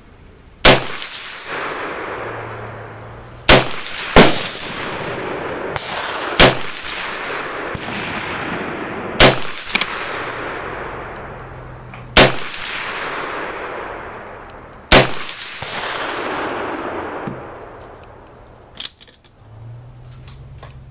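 M1 Carbine firing single semi-automatic shots: about eight sharp reports a few seconds apart, each trailing off over a second or two. A couple of light clicks near the end as the rifle is handled.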